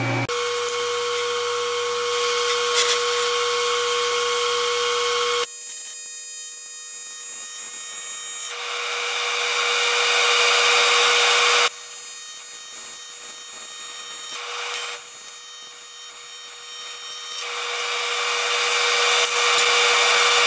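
Buzz of an AC TIG welding arc on aluminum plate, from a PrimeWeld TIG 325X. It is steady, with a hum and a hiss, and its tone changes abruptly several times, about every three seconds.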